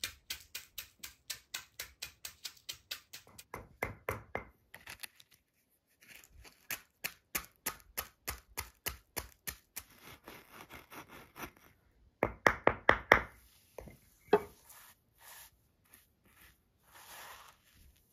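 Wooden pestle pounding dry bread in a stone mortar, crushing it into crumbs, in quick regular strokes about five a second. It stops briefly about four and a half seconds in, then goes on, with a few heavier strokes after about twelve seconds.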